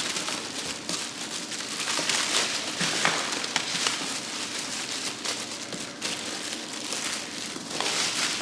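Packaging wrapping crinkling and rustling with scattered crackles as an inflatable paddle board is pulled out of it.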